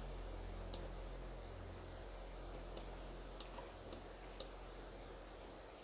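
Five faint, sharp clicks spaced irregularly over a few seconds, against a low steady hum and faint hiss.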